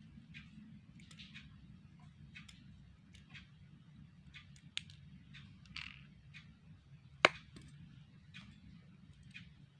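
Small, scattered clicks and taps of watch-repair tools working on a wristwatch, with one sharp, louder click about seven seconds in, over a steady low hum.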